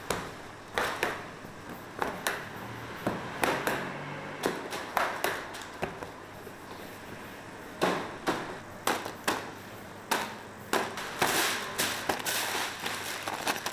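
Irregular sharp knocks and clatters, some in quick pairs, from hands-on work in a bakery: hard objects such as trays, pans or utensils being set down and handled.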